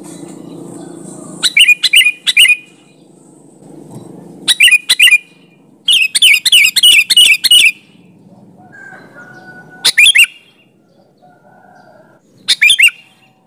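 Sooty-headed bulbul (kutilang) singing in about five short bursts of bright chirping notes, the longest a quick run of about eight notes about six seconds in.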